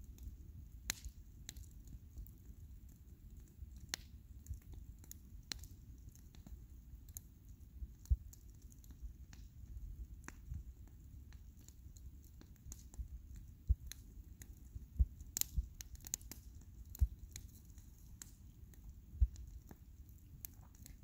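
Large wood bonfire crackling, with irregular sharp pops and snaps over a low, steady rumble; the strongest pops come about 8 seconds in and several times in the second half.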